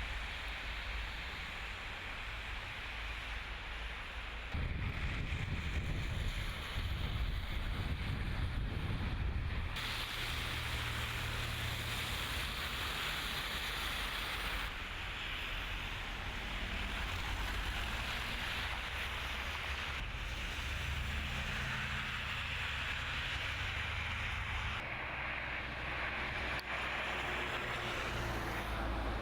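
Outdoor ambience in a snowstorm: steady wind noise with a low rumble of traffic, changing abruptly every five seconds or so as one shot gives way to the next.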